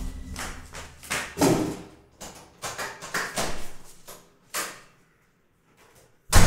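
A person moving about a small room and going out through its door: scattered footsteps, knocks and rustles, a quiet spell, then one loud thump near the end.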